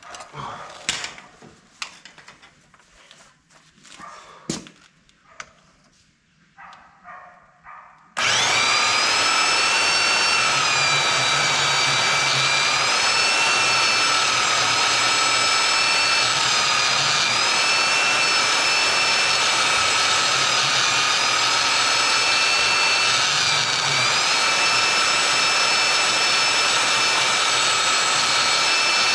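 A few light clicks and knocks, then about eight seconds in an electric power tool starts and runs loud and steady to the end, its whining pitch dipping briefly several times as the tool is loaded against the work.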